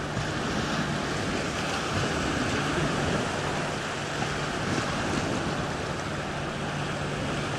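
Small sea waves breaking and washing over shallow sand: a steady surf wash, with a faint steady low hum underneath.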